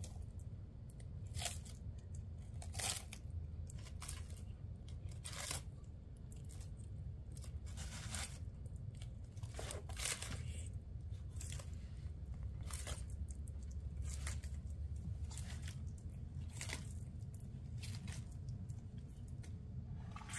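Tortoise biting and tearing off butter lettuce leaves: crisp crunching snaps at irregular intervals, roughly one every second or two.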